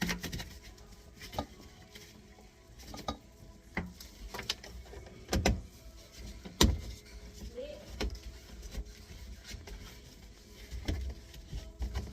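Irregular clicks and knocks of plastic P-trap drain fittings being handled and their slip nuts screwed on by hand, the two loudest knocks a little past the middle.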